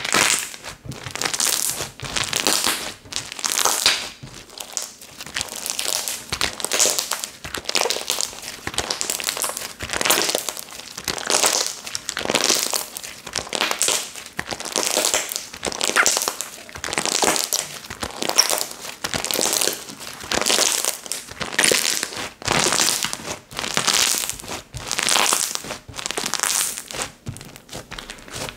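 Slime being pressed, folded and squished by hand, giving wave after wave of wet crackling and clicking, about once a second.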